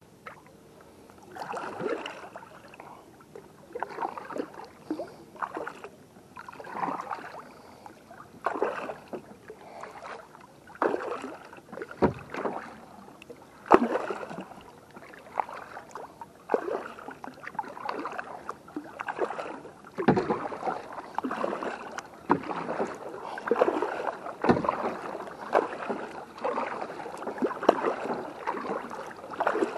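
Kayak paddle strokes: the blades dip and pull through calm lake water with splashes and drips, one stroke every second or two, coming faster in the second half. Now and then a sharp knock sounds among the strokes.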